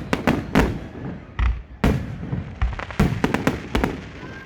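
Fireworks display: about a dozen sharp bangs of bursting shells at irregular intervals, several coming in quick clusters.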